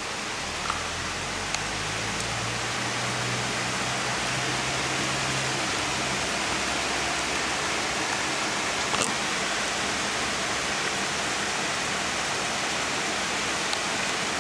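Heavy rain pouring steadily on a street, a dense even hiss. A low engine hum from a car on the wet road sits under it for the first six seconds or so, then fades out.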